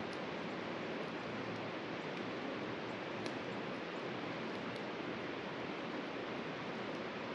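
A mountain river rushing in a steady, even wash of water noise, with a few faint clicks about three and five seconds in.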